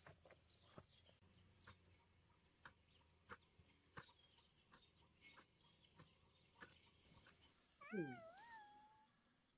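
Mostly near silence, with faint repeated soft chops of a hand hoe biting into garden soil. About eight seconds in comes a short wavering call that dips and rises in pitch and lasts about a second.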